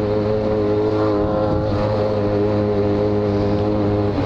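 Yamaha XJ6's inline-four engine running at a steady, low cruising rpm under light throttle, its note holding an even pitch and breaking off right at the end as the throttle changes. The exhaust is de-baffled, giving a loud, open note.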